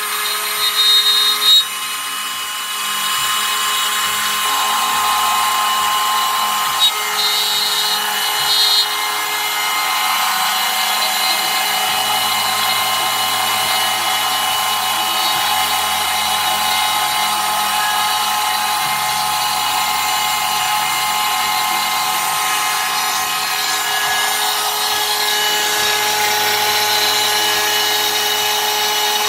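Ridgid router on a Maslow chain-driven CNC running steadily with a high whine while cutting plywood. Under it a low hum shifts in pitch every few seconds.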